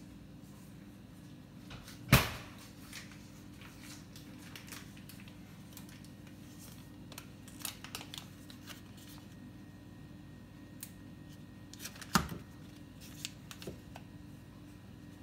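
Kitchen handling sounds over a steady low hum: a sharp knock about two seconds in and another about twelve seconds in, with a few light clicks and taps between. Near the end come light taps of a metal fork pushing butter into a stone-coated frying pan.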